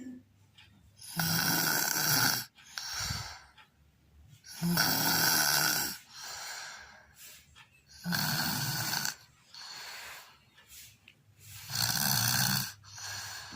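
Snoring: four loud snores about every three and a half seconds, each lasting about a second with a low buzzing tone under a hiss, and a quieter breath between each pair.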